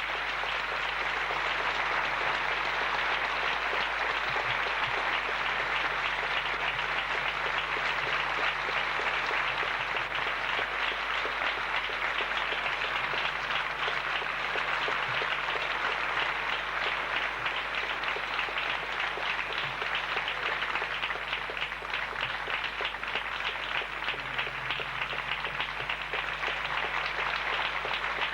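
Theatre audience applauding steadily after a ballet number, a dense even clapping with no music.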